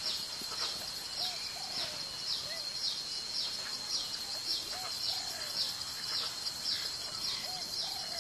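Wetland ambience: a small bird repeats a short falling chirp about twice a second over a steady high whine, with soft, low, rising-and-falling calls now and then.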